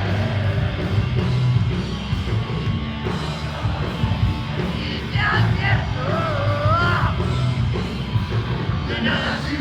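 Live rock band playing loudly, heavy on bass and drums, with a singer's voice wavering up and down about halfway through.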